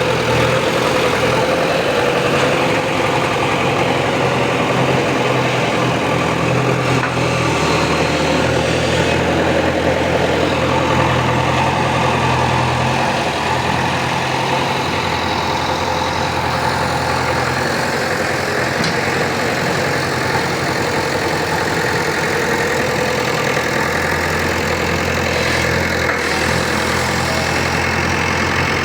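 Diesel engine of an earthmoving machine digging soil, running steadily, its note shifting slightly now and then.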